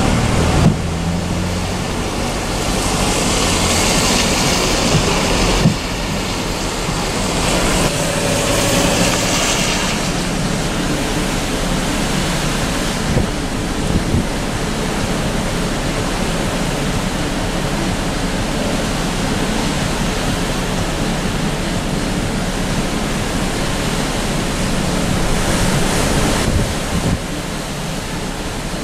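Storm wind and rough, breaking water, with wind buffeting the microphone; the hiss swells in several gusts.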